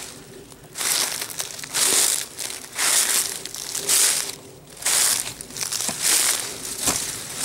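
Footsteps crunching through dry fallen leaves, about one step a second.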